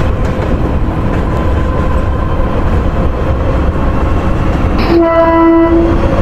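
A train running past with a steady rumble of wheels on the track, starting suddenly. Near the end the horn sounds once on a single note for about a second.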